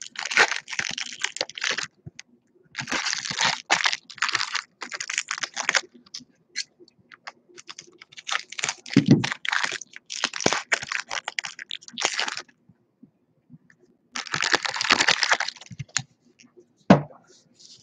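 Foil trading-card packs crinkling and tearing open in hand, in several bouts of crackling with small clicks and taps in the gaps.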